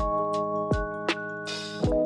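Background music: held synth chords over a steady beat, with a short hiss about three-quarters of the way through.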